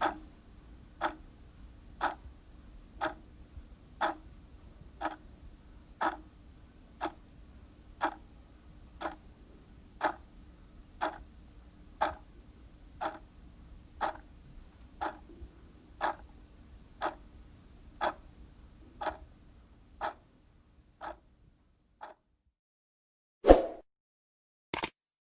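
Steady ticking, one sharp tick about every second for some twenty seconds, growing fainter over the last few ticks. Near the end come a louder single knock and then a short click.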